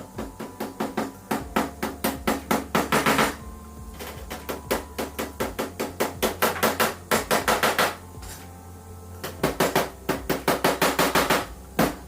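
Hammer striking repeatedly in three runs of quick, even blows, about five a second, as a frame is nailed together.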